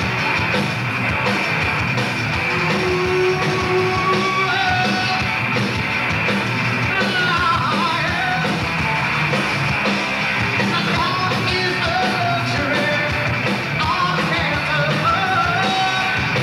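A heavy rock band playing live: electric guitars, bass and drums, with a vocalist singing and yelling over them.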